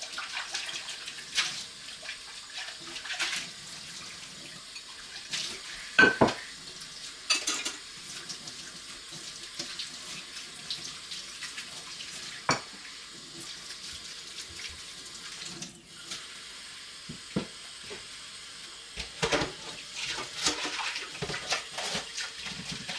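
Kitchen tap running steadily into a sink, with dishes and utensils knocking and clinking now and then, the loudest knock about six seconds in.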